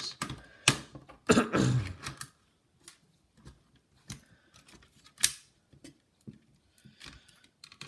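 Scattered small clicks and taps of a precision screwdriver working out small screws from a laptop's motherboard and chassis. The loudest come in the first two seconds, with a single sharp click about five seconds in.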